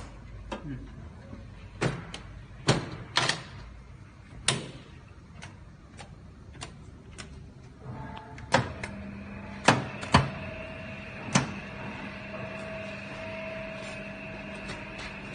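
A series of sharp knocks and clicks, then about eight seconds in a machine starts up into a steady hum with a whine, typical of a tunnel dryer's fan and conveyor motors running, while a few more knocks sound over it.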